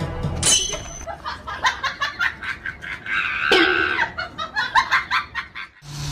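People laughing in quick, short, repeated bursts, with a higher, sustained cry about three seconds in.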